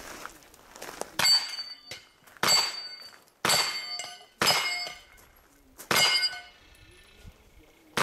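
Pistol-caliber carbine shots, five of them about a second apart, each followed by the ringing of a hit steel target.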